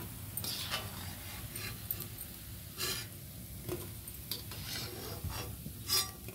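Steel slotted skimmer scraping and clinking against a steel kadhai and a steel bowl as deep-fried cabbage Manchurian balls are scooped out of hot oil, in about ten short strokes, over the bubbling of the frying oil.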